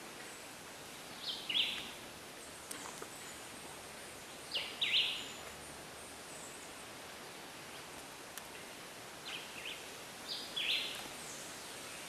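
A bird calling three or four times a few seconds apart, each call a short pair of notes sweeping downward, over a steady faint outdoor hiss.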